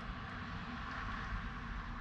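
Steady background rumble with hiss, without clear bird calls.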